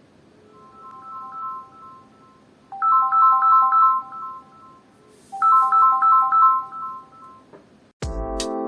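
Samsung Galaxy A03 incoming-call ringtone: a quick, bright three-note chiming figure played three times, faint the first time and much louder the next two. Near the end, loud electronic music with a beat cuts in.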